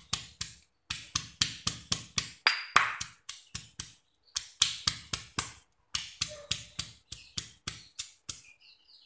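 Stone pestle pounding shallots and lemongrass in a granite mortar: quick, even strokes, about five or six a second, with brief pauses, dying out near the end.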